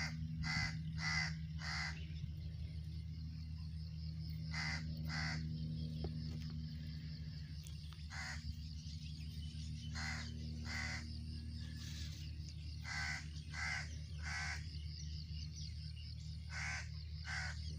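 Bird calls, about fourteen short ones in series of two to four, over a steady low hum.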